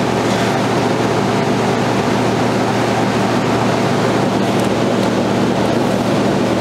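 Soft-serve ice cream machine running: a steady, even mechanical hum.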